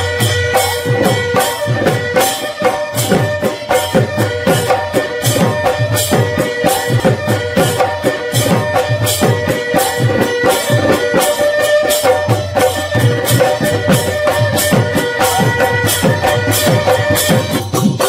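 Live Assamese Bihu folk music: dhol drums beat a fast, steady rhythm under a held melody line.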